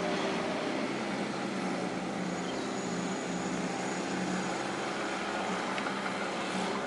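An engine running steadily: a constant drone with a low hum.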